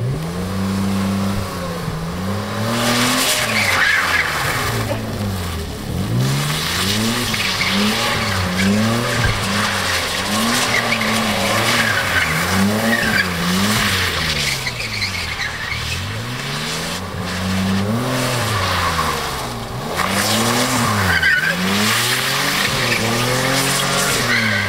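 BMW E34 5 Series drifting in circles: the engine revs up and falls back over and over, about once a second, while the rear tyres squeal and scrub on the concrete.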